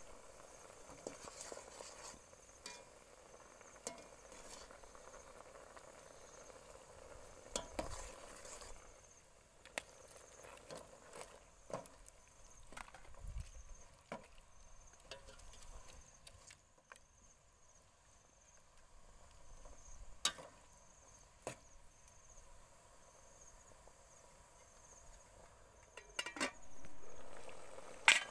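Metal ladle stirring chicken pieces in an aluminium soup pot, with scattered faint clinks and knocks of the ladle against the pot. Behind it, a faint steady high pulsing chirr of insects.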